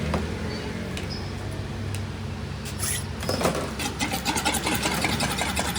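A steady engine hum with scattered metallic clicks and knocks. From about four seconds in, a fast run of ticks sets in.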